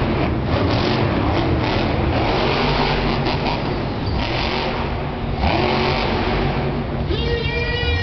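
Monster trucks' supercharged V8 engines running hard at high revs, with a rise in pitch about five and a half seconds in as a truck accelerates. Music over the arena speakers starts near the end.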